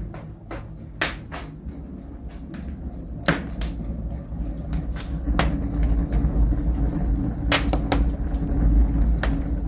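Scattered sharp knocks and taps, several seconds apart and some in quick pairs, over a steady low rumble; a steady hum joins about halfway through.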